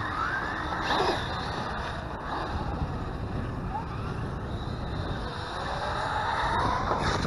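Whine of electric RC car motors, rising and falling in pitch as the cars speed up and slow down, over wind rumbling on the microphone. A longer rising whine builds over the last couple of seconds.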